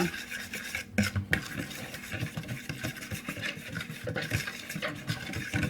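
A utensil stirring shortening into very hot water in a bowl to melt it, with irregular scraping and clinking against the bowl and a few sharper knocks about a second in.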